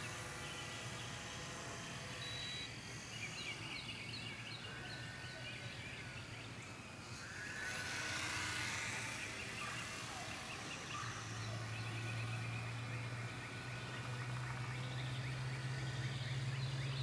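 Small RC airplane's motor and propeller droning steadily overhead, growing louder and a little higher in pitch in the last few seconds as it comes in. Birds chirp throughout.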